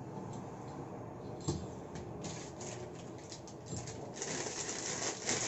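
Handling noise: scattered clicks and scrapes as a plastic microphone shock mount is worked onto a stand, then crinkling plastic wrapping around a condenser microphone, densest about four to five seconds in.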